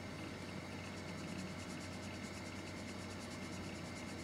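Sandpaper rubbed in quick, light strokes over a plastic model-kit part, several rasps a second, smoothing away the leftover sprue gate. A faint steady hum lies underneath.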